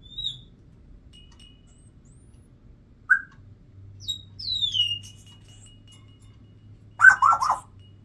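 Congo African grey parrot whistling and chirping: a short high whistle at the start, a brief chirp about three seconds in, then a falling whistle that levels off into a long faint tone. A louder, brief chattering call comes near the end.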